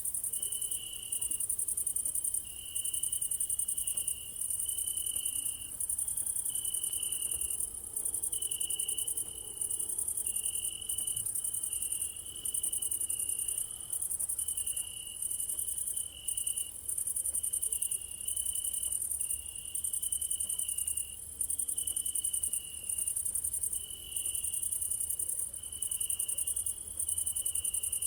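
Night chorus of crickets: a steady high-pitched trilling broken by short regular gaps, over a lower chirping trill that repeats about every second and a half.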